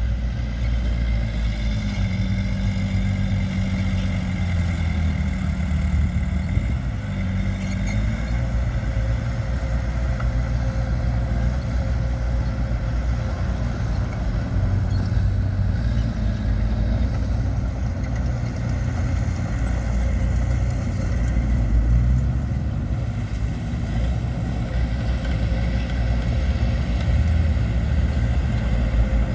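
Heavy earthmoving machinery at work: the steady deep drone of a large diesel engine, its pitch rising and falling for a few seconds early in the stretch before settling.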